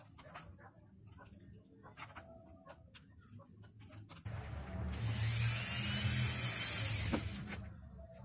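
Small electric drill running for about three seconds, starting a little past four seconds in and then dying away.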